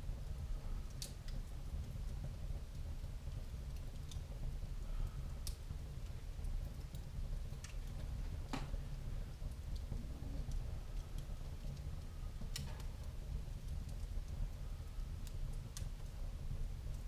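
Wood fire burning in a fireplace: a steady low rumble with scattered sharp crackles and pops at irregular intervals.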